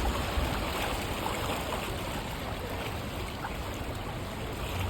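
Steady rushing of rain-fed floodwater, with a low rumble underneath.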